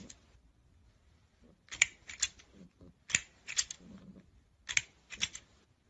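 Plastic crocodile toy clicking: three pairs of sharp plastic clacks, the clacks in each pair about half a second apart and a pair every second and a half or so.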